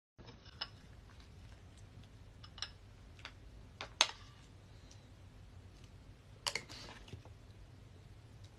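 A few scattered light clicks and taps over a faint low room hum, the sharpest a little past the middle.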